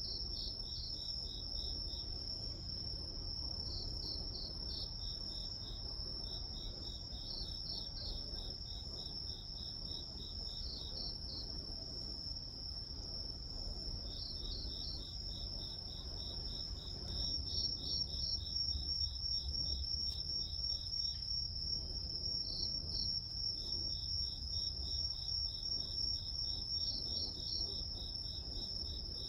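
Crickets and other grass insects chirping: one continuous high trill, with another insect's rapid pulsed chirps coming in short groups every second or two. The trill grows somewhat louder a little over halfway through.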